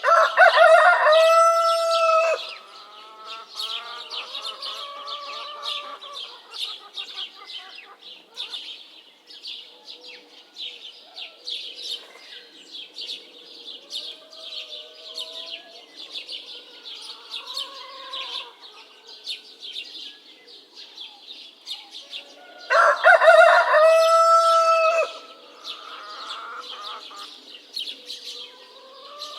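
Rooster crowing loudly twice, once at the start and again about twenty seconds later, over continuous dense chirping of small birds. Fainter, lower calls come and go in between.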